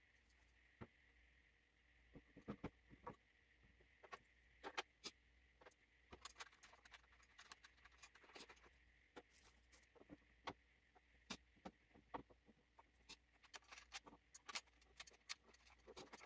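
Faint, irregular clicks and taps of screws, a screwdriver and a metal wall-mount bracket being handled and fastened onto the back of a flat-screen TV.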